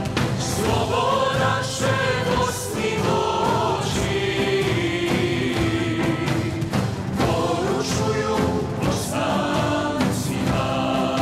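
Music: a choir singing in long held notes.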